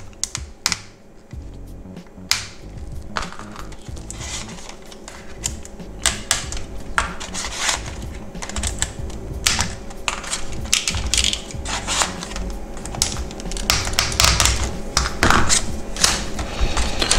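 Irregular small clicks and taps of a hand tool against the plastic of a car instrument cluster as its gauge needles are levered off, few at first and coming thick and fast from about six seconds in.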